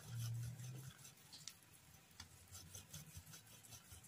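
Soft cookie dough being rubbed down a stainless-steel box grater, faint irregular scratchy strokes as crumbs fall onto baking paper. A low rumble in the first second is the loudest part.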